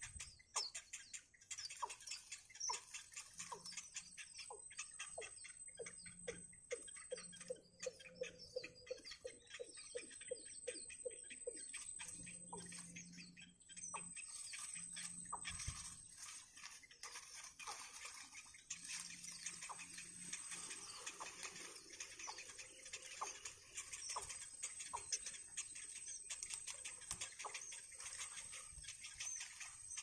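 Faint begging calls of nestling birds: rapid ticking and chittering, with a run of louder ticks at about two a second for the first ten seconds or so. A steady thin high tone runs underneath.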